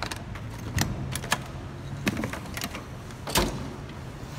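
Tools and tubes clattering and clicking as they are moved about in a metal toolbox drawer, with a louder knock about three seconds in.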